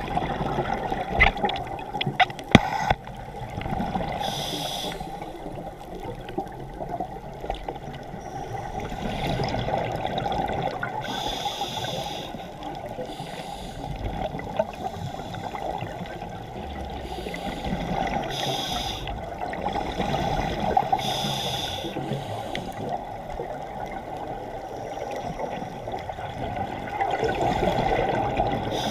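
Underwater sound of a scuba diver breathing through a regulator: a hissing, bubbling breath every few seconds over a steady muffled rush of water.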